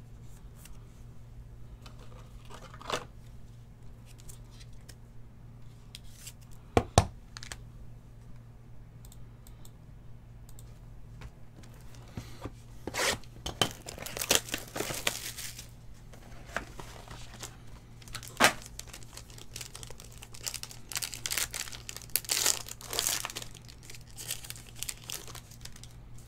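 Plastic trading-card wrapping being torn and crinkled by hand, in irregular bursts. A pair of sharp knocks comes about seven seconds in, and a faint steady hum runs underneath.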